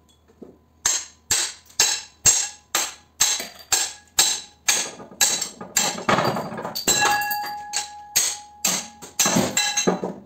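Hammer blows on an electric motor's end bell and rotor shaft, about two strikes a second, driving the end bell off the rotor. The metal rings out with a clear tone between the later blows.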